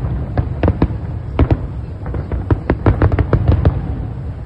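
Fireworks display: a rapid, irregular barrage of sharp bangs, several a second, over a continuous low rumble.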